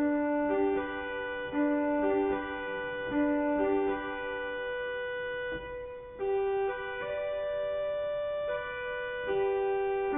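Two-manual church organ playing a slow tune in held chords, the notes moving every second or so and running on without gaps.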